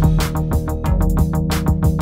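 Background music with a quick, steady beat over held tones.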